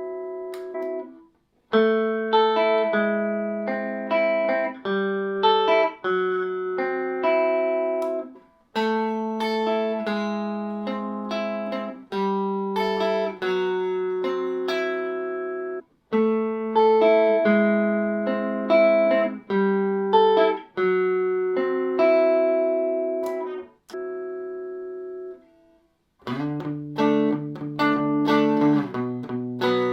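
Fender Telecaster played clean through a Fender '57 Tweed Twin amp with no effects: melodic phrases of ringing notes and double-stops that decay between short pauses. Near the end the playing moves lower and gets busier.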